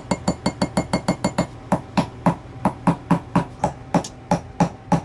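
Small ball-peen hammer tapping on a steel Ruger LCP II pistol slide, a quick series of light metal-on-metal taps with a faint ring. The taps come very fast for the first second and a half, then slow to about three a second. They are working at a pin held fast by corrosion in its hole.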